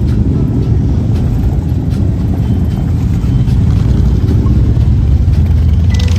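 Harley-Davidson motorcycle engines running steadily at low revs, a loud deep rumble.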